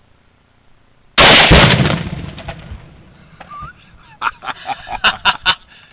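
A rifle shot and, a split second later, the heavier boom of a tannerite target detonating about 100 yards downrange, the blast dying away over about a second. A few sharp clicks follow near the end.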